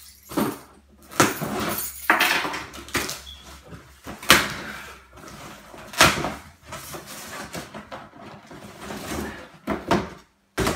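Cardboard shipping box being torn open by hand: tape pulled off, and flaps rustling and scraping in quick irregular strokes, with sharp knocks of cardboard against a wooden tabletop.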